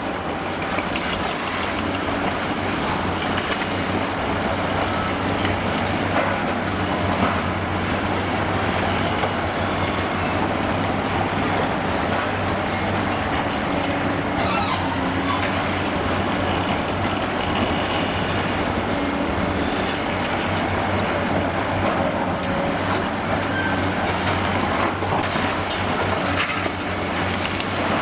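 Big diesel demolition excavators running steadily under load, a continuous low engine drone, with a few faint knocks now and then.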